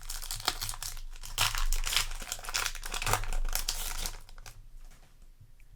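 Yu-Gi-Oh! booster pack's foil wrapper crinkling and tearing open for about four seconds, then dying down to faint handling ticks.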